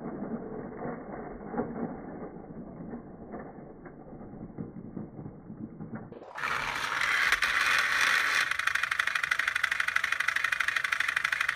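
Battery-powered toy train's small motor and gears, with slowed-down, deep clicks and rattles for the first half. About six seconds in, it switches to a loud, steady whirr at normal speed with a fast even rattle as the train runs along plastic track.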